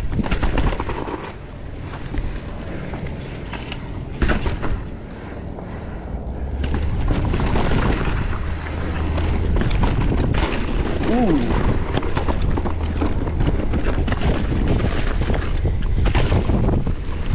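Mountain bike riding down a rough, rocky trail: a steady rumble and rattle of tyres and bike over the ground, with wind buffeting the microphone. Sharp knocks come as the bike lands hits and drops, the loudest about four seconds in. A brief squeal comes around eleven seconds.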